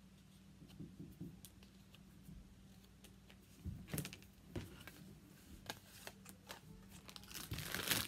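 Handling of cardstock cutouts and lollipop sticks on a cutting mat: scattered light taps and paper rustles, louder about four seconds in and again near the end, over a faint steady low hum.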